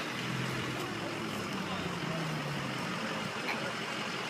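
Pickup truck engine running at low revs as it creeps forward, with a steady low hum that wavers slightly in pitch over a constant hiss of outdoor noise. A single sharp click right at the start.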